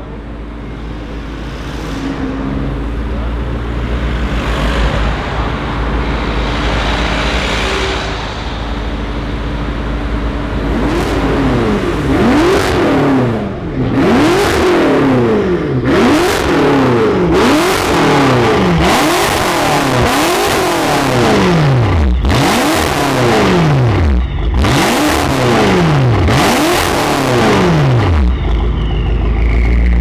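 BMW M5 F10's twin-turbo V8 through an Akrapovic exhaust: a steadier engine sound at first, then revved hard over and over, about once a second, each rev rising and dropping back, before settling to idle near the end.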